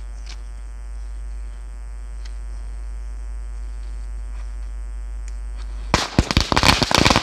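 Red bijli firecrackers, a string of 100, going off in a rapid, irregular run of sharp cracks that starts about six seconds in, over a steady background hum.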